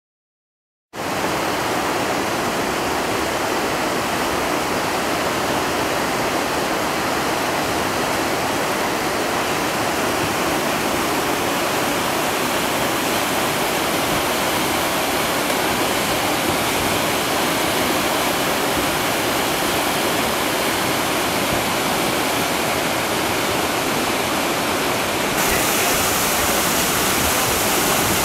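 White-water rapids of a river in spate after heavy rain, a steady loud rush of water that starts abruptly about a second in and turns a little louder and hissier near the end.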